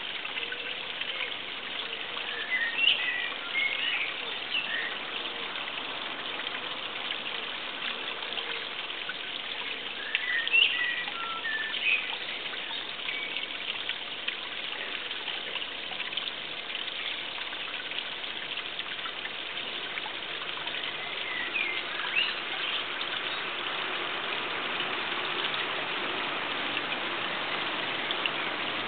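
Steady trickling water, with a small bird chirping in three short spells: about three seconds in, around ten to twelve seconds, and about twenty-two seconds in.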